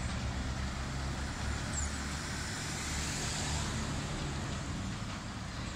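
Miniature railway train running steadily, a continuous low rumble of the locomotive and wheels on the track.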